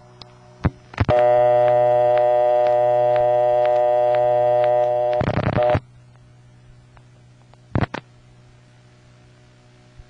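Telephone line audio from a Bell System step-by-step central office. A click, then the office's buzzy dial tone sounds steadily for about four seconds before dialing breaks it off. The line then goes quiet with a low hum and a few sharp switching clicks as the call is set up.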